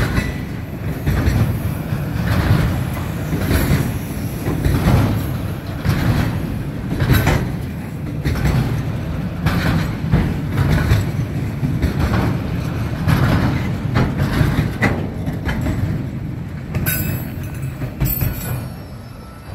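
Freight train cars rolling past at close range: a heavy rumble with repeated sharp clacks as the wheels cross rail joints. It dies away near the end.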